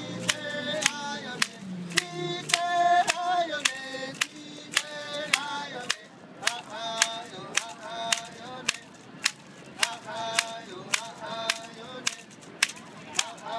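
Men singing a ceremonial song, keeping a steady beat of about two to three claps a second on wooden clapper sticks. The voices drop back about six seconds in while the clapping goes on.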